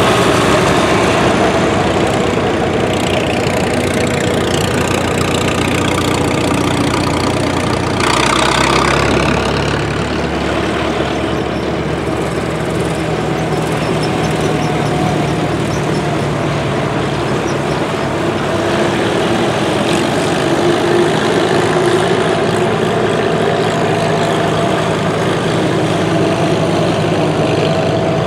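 Antique farm tractors driving past one after another, their engines running steadily. Among them are a John Deere and a Minneapolis-Moline. A deeper engine sound comes in about eight seconds in as another tractor draws close.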